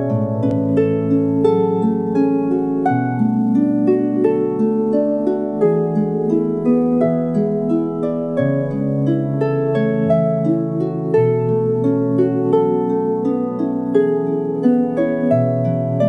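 Lyre music: a steady stream of plucked string notes, several a second, over lower notes that change every few seconds.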